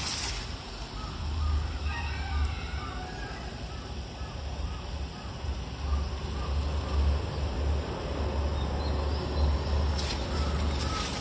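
Birds calling over and over in the early-morning garden, short repeated calls, over a low rumble on the microphone. A brief rustle comes at the start and again near the end.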